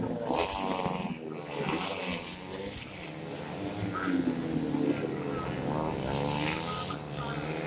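125cc four-stroke underbone race motorcycles accelerating out of a corner, their engines revving up in rising sweeps. One bike comes through near the start and two more about six seconds in.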